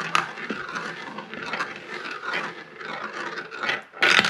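A marble rolling round and round inside the plastic funnel bowl of a marble run toy, a steady rolling whir with small clicks. About four seconds in it drops out and clatters down the plastic track.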